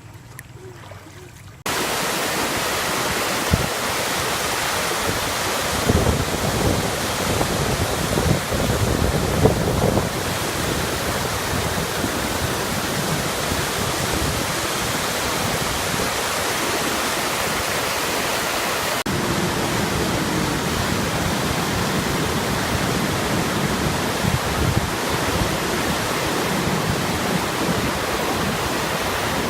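Rushing water, a loud steady rush that starts suddenly about two seconds in.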